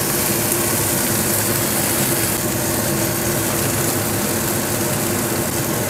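Pindang fish frying in hot oil in a pan, a steady sizzle, with a steady low hum underneath.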